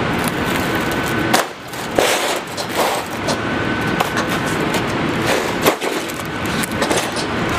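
Aluminium sheet metal being bent by hand into a cone with a clamped steel bar as a lever: the sheet flexes and rattles, with several sharp metallic knocks.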